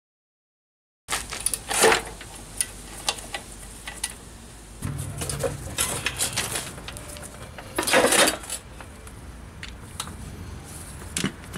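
Wrench and metal parts clinking and clanking as a pressure washer's pump is unbolted and taken off the engine. The sound starts abruptly after about a second of dead silence, with two louder clanks, one about two seconds in and one near eight seconds.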